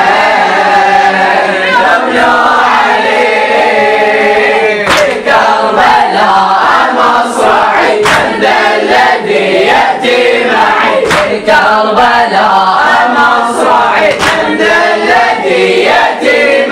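Group of boys chanting a latmiya refrain together in chorus, with sharp chest-beating strikes (latm) landing every second or two.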